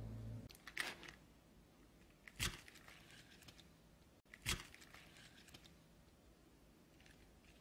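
Background music fades out at the very start, then a few faint, brief crunching sounds, about two seconds apart.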